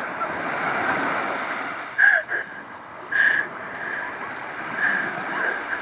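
Small waves washing up a sandy beach in a steady hiss of surf, with two brief louder splashes about two and three seconds in as a person wades beside a kayak in the shallows.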